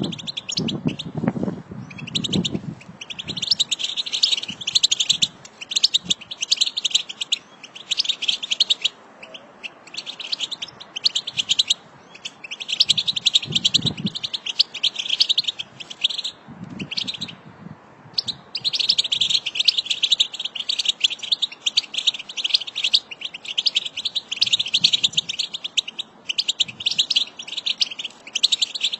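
A flock of European goldfinches chattering together: dense, rapid twittering in runs of a second or two with short breaks. Underneath there are a few brief low rumbles, near the start and around the middle.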